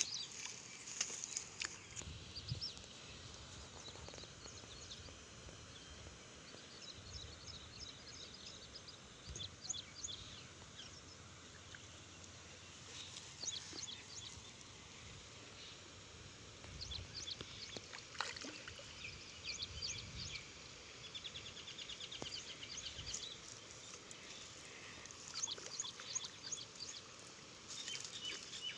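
Birds chirping and twittering in short calls scattered throughout, with a couple of quick trills, over a faint steady outdoor background.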